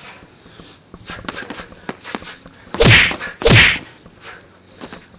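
Two loud boxing-glove punches landing about half a second apart, just past the middle, each a swish sweeping down into a heavy smack, after a few lighter glove taps.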